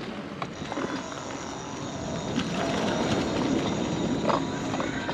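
Mobility scooter rolling along a concrete path, a steady rush of tyre and wind noise with a few sharp knocks as it rattles over bumps in the pavement.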